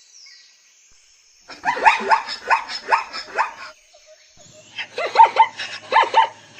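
Zebra calling: two runs of quick, yelping barks, the first starting about a second and a half in and the second about five seconds in.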